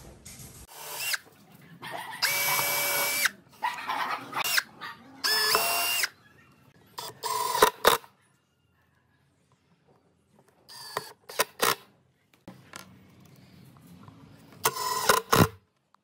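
Hitachi cordless power driver driving screws into wood in about six short runs, each up to about a second long, with a pause of a couple of seconds in the middle.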